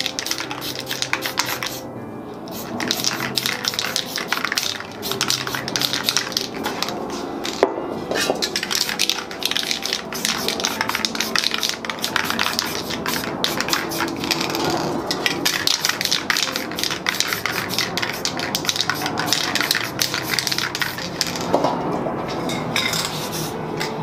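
Aerosol spray paint cans hissing onto canvas in strokes, with the metal clatter of the cans, broken by a few brief pauses. Music plays underneath.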